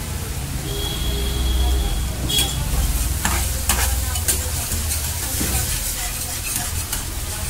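Chilli sauce sizzling in a nonstick frying pan while a steel spatula stirs it, with repeated scrapes and clinks of the spatula against the pan from about two seconds in.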